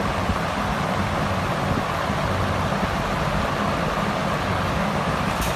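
Steady, loud rushing noise with a deep rumble beneath it, unbroken throughout.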